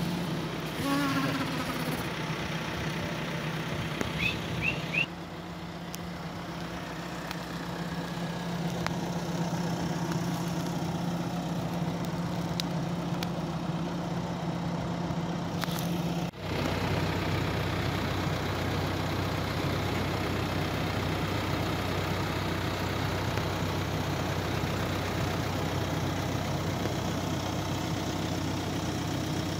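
Diesel engine of a bucket loader (kepçe) running steadily as it carries goat kids in its bucket, with a few brief high-pitched sounds in the first five seconds; about 16 s in the hum drops to a lower pitch.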